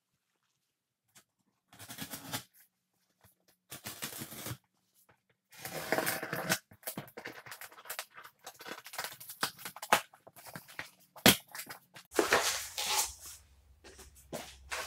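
Packing tape being peeled and ripped off a cardboard shipping box and the cardboard flaps pulled open: irregular tearing and scraping in short bursts from about two seconds in, becoming nearly continuous midway, with one sharp snap near the end.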